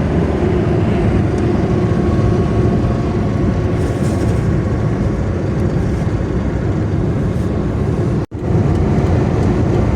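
Steady engine and road noise of a Daewoo Matiz driving at highway speed, heard from inside the car. The sound drops out abruptly for a split second about eight seconds in.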